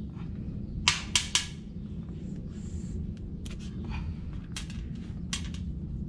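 Sharp clicks and cracks of barnacles being pried and snapped off a small sea turtle's shell by hand: three loud ones in quick succession about a second in, then a few scattered single clicks. A steady low hum underneath.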